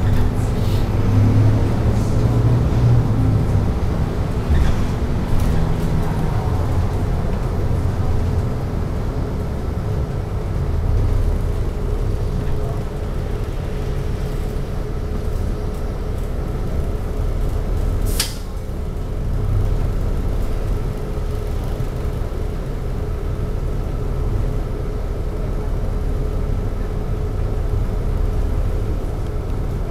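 City bus engine heard from inside the cabin, working as the bus moves in traffic for the first few seconds, then running steadily at a standstill. One short, sharp air-brake hiss comes about eighteen seconds in.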